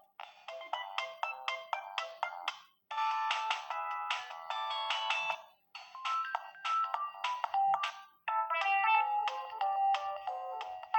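Siemens A52 mobile phone playing a ringtone: a quick electronic beeping melody in short phrases, with brief pauses about three, six and eight seconds in.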